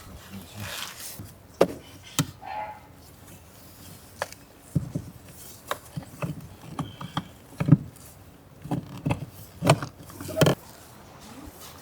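Irregular knocks and clunks of objects being handled and set down, about a dozen spread over several seconds, in a loose uneven rhythm.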